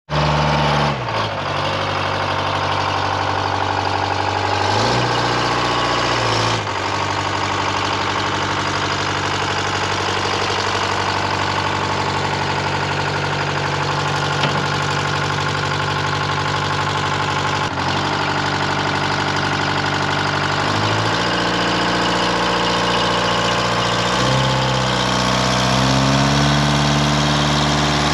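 Detroit Diesel 4-71 two-stroke diesel engine of a Dynahoe 200-4 backhoe-loader running while the machine is driven. Its revs drop and pick up several times and climb near the end.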